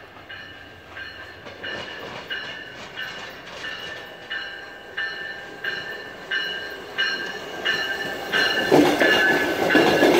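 Amtrak passenger train approaching with a warning bell ringing about one and a half strikes a second, growing steadily louder. About nine seconds in, the rumble of the train passing close takes over.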